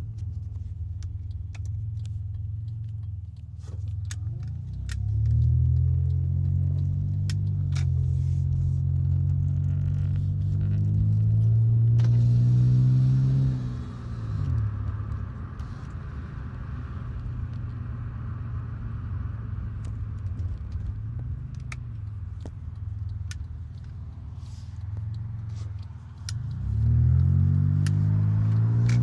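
Turbocharged Honda J30A1 3.0-litre V6 heard from inside the Accord's cabin while driving. The engine note climbs about five seconds in and is held loud under load until about fourteen seconds, drops sharply, runs steady at lower revs, then climbs again near the end. Light clicks and rattles are scattered throughout.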